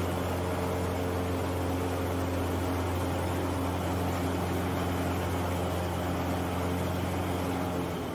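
Aviat Husky A1-B's four-cylinder Lycoming engine and propeller running steadily, heard from inside the cockpit: a low hum with several steady tones over a rushing noise, shifting near the end.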